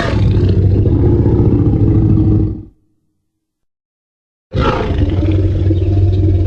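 Tyrannosaurus rex roar sound effect, heard twice: a loud, low roar lasting about two and a half seconds, silence for nearly two seconds, then a second roar starting about four and a half seconds in.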